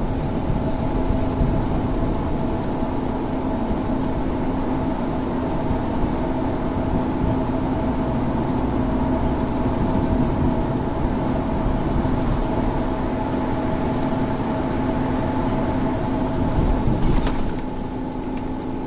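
Steady road noise from a car cruising on the expressway, heard from inside the cabin: an even rumble of tyres and engine with a constant hum. About 17 seconds in a brief louder rush comes through, and then it settles a little quieter.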